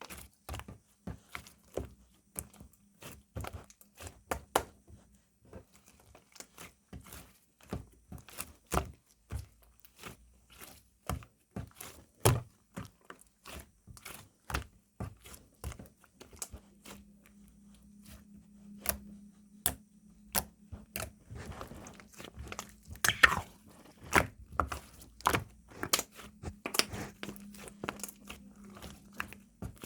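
Slime being squeezed and pressed by hand, making irregular small crunchy clicks and pops, several a second. A faint low hum sits under the second half.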